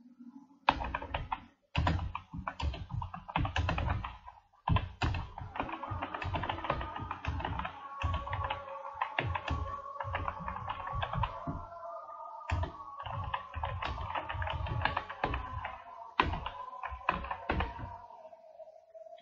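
Typing on a computer keyboard: quick, uneven runs of keystrokes with short pauses, stopping shortly before the end. Music plays underneath.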